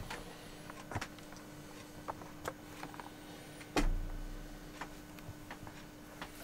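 Handling noise from a handheld camera being moved about: scattered light clicks and a dull knock nearly four seconds in, over a faint steady hum.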